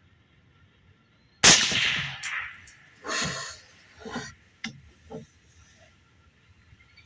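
A single suppressed shot from a 16-inch 5.56 AR-platform rifle fitted with a Silencer Co Chimera 300 suppressor, about a second and a half in, with a short ringing tail. A few fainter sharp knocks follow over the next few seconds.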